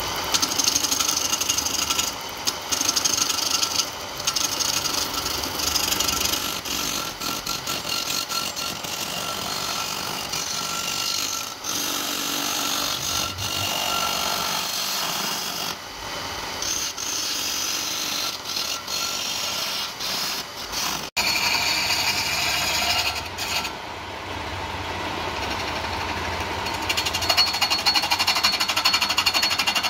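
Turning chisel cutting a spinning wooden blank on a wood lathe: a loud, rough, rapidly chattering scrape of the steel edge on the wood, with a brief break about two-thirds of the way through.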